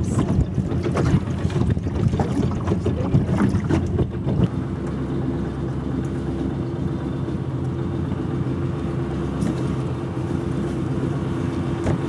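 Small motorboat's engine running. For the first four seconds or so, wind buffets the microphone and water slaps the hull. Then it settles into a steady, even engine hum as the boat comes alongside a pier.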